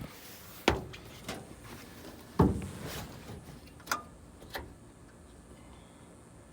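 A handful of separate knocks and clicks, the loudest about two and a half seconds in, then quiet for the last couple of seconds.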